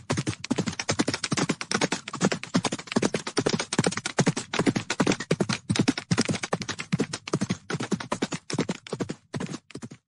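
Hooves of a large herd of horses galloping on hard ground: a dense, continuous clatter of many overlapping hoofbeats.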